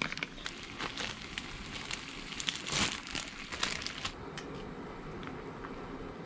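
Crinkling and crackling kitchen noise with many small clicks, and a louder rustle about three seconds in, from a pot of ramen noodles boiling hard on a gas stove and plastic packaging being handled.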